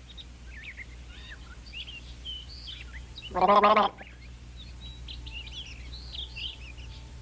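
Small birds chirping and twittering softly in short, scattered high calls. About three and a half seconds in comes a single, louder held voiced call lasting about half a second.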